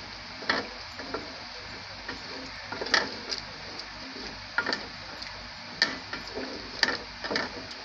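A wooden spoon stirring chunks of beef, potatoes and green chillies through a wet masala in a metal pot, knocking and scraping against the pot about once a second at irregular intervals, over a faint steady hiss.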